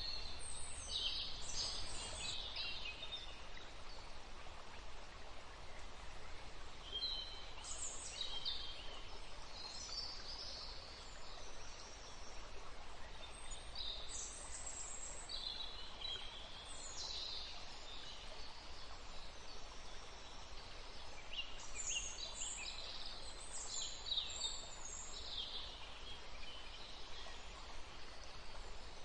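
Forest ambience: a steady even hiss of green noise under wild birds singing, with short high calls coming in clusters every few seconds.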